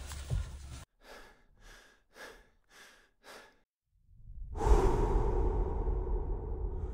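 A person's shaky, gasping breaths from the cold: five short breaths about half a second apart. About halfway a steady rushing swell comes in and holds.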